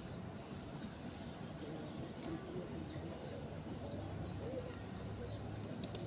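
Riverside ambience: a steady rush of flowing water and breeze, with a small bird repeating short high chirps throughout and faint distant voices in the middle.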